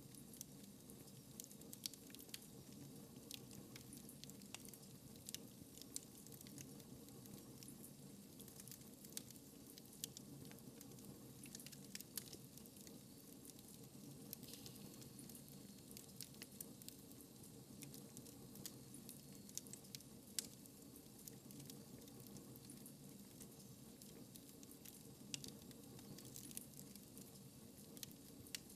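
Wood fire crackling in a fireplace: frequent irregular pops and snaps over a soft, steady hiss, faint overall.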